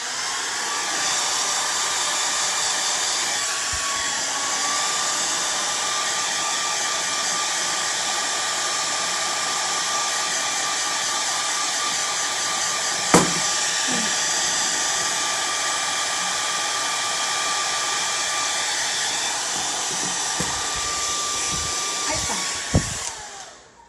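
Handheld hair dryer running steadily, a rush of air with a steady whine over it, drying fresh acrylic paint on a tumbler. A single sharp knock about halfway through, and the dryer switches off shortly before the end.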